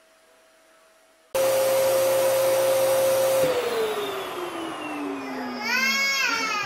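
Vacuum cleaner comes on suddenly and loudly about a second in and runs with a steady whine. About two seconds later it is switched off and the motor's whine winds down, falling steadily in pitch. Near the end a baby lets out a crying wail that rises and falls.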